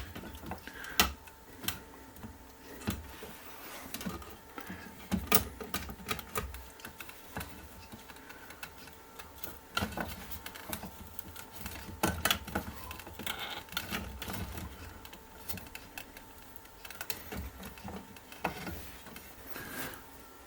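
Irregular light clicks and knocks of wooden sun-shade slats and parts being handled and fitted, a few sharp knocks standing out.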